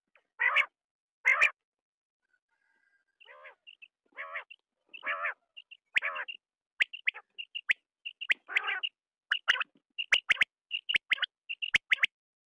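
Quail calling over and over: short, sharp high notes, often in quick runs of two or three, mixed with longer, lower buzzy calls. The calls pause for about a second and a half near the start and come thicker toward the end, with sharp clicks between them.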